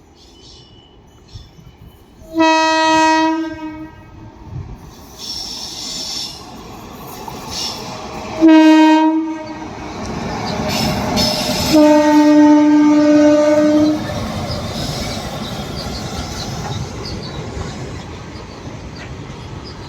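Indian locomotive horn sounding three blasts, the third the longest, while trains pass with a steady rumble and clickety-clack of wheels over rail joints.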